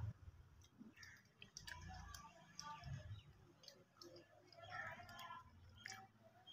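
Faint chewing with soft wet mouth clicks: someone eating a fried samosa with the mouth closed.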